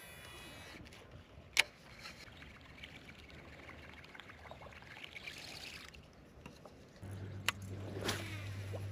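Quiet boat-side sounds while fishing: faint water noise, a sharp click about one and a half seconds in and another near the end, and a low steady hum that starts about seven seconds in.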